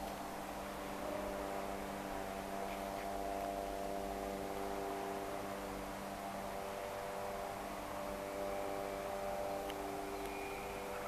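Steady hum made of several even tones over a faint hiss; near the end a faint high whine joins in.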